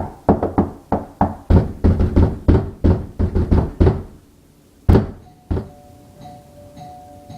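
Fast, repeated knocking, about four to five knocks a second, that stops after about four seconds; then two louder single knocks. After these, music with a steady held tone begins.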